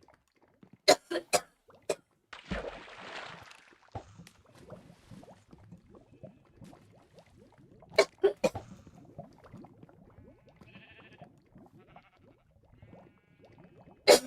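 A young woman coughing in short fits: a quick run of about four coughs a second in, then a longer breathy rasp, three more coughs about eight seconds in, and another cough at the very end.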